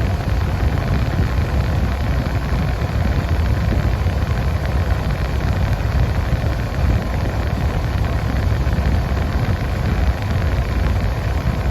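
Steady in-cabin noise of a 1992 Nissan 300ZX Twin Turbo with its air-conditioning blower running and the twin-turbo V6 idling: an even rush of air over a low rumble.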